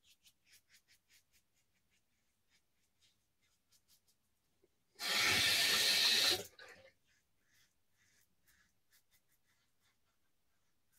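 Mühle Rocca safety razor scraping through lathered stubble in quick short strokes. About five seconds in, a tap runs for about a second and a half, then the short razor strokes resume.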